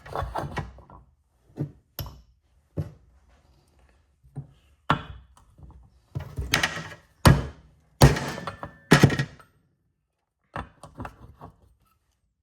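Hammer blows pounding a bearing out of a Polaris ATV front differential housing: a series of sharp, irregular knocks, a few light taps at first and then a run of heavier strikes about halfway through. The bearing has not yet come free.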